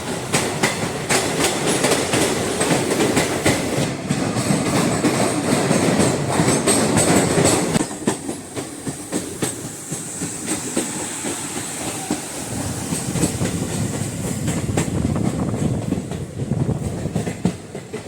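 Passenger train running on the track, its wheels clattering over the rail joints in a steady clickety-clack. It is louder for the first half, then quieter after about eight seconds.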